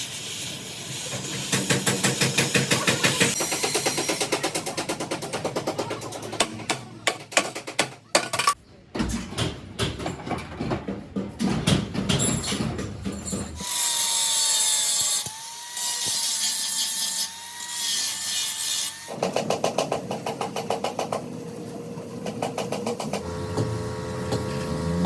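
Workshop tool sounds in quick succession: fast rhythmic scraping or sanding strokes, a run of sharp taps, and a power tool running with a wavering whine, each section cutting off abruptly into the next.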